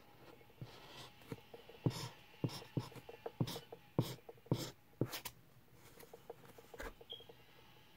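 Pink marker coloring in a heart on paper laid on a tabletop: quick, irregular scratching strokes and taps of the felt tip, busiest in the middle and thinning out toward the end.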